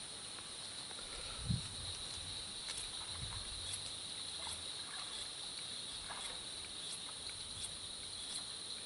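Steady insect chorus, an even high-pitched buzz, with a few faint ticks and a soft low thump about one and a half seconds in.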